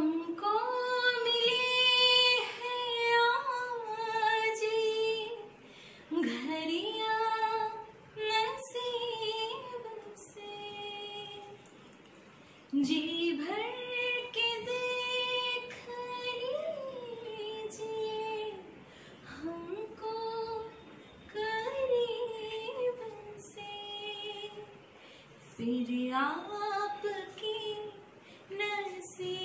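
A woman singing a song solo and unaccompanied, in long held phrases with short breaths between them.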